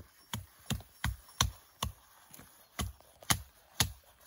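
Stihl forestry hatchet chopping spruce branches: about ten quick, sharp strikes, roughly three a second, with a short pause about halfway through.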